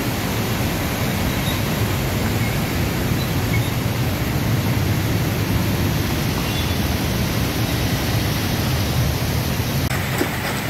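A jet of water pouring from a pipe outlet and splashing steadily into floodwater, a constant rushing splash. The sound shifts slightly near the end.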